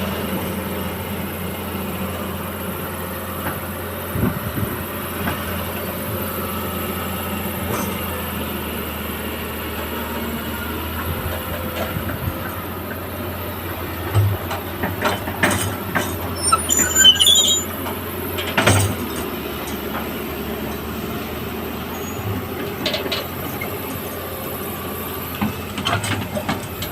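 Excavator engine running steadily, with metal knocks and high squeals from the machine mostly in the middle stretch.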